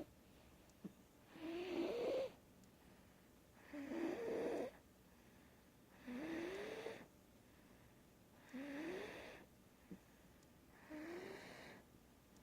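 Snoring: five slow, even snores about two and a half seconds apart, each a breathy snore whose pitch rises as it goes, the later ones a little softer.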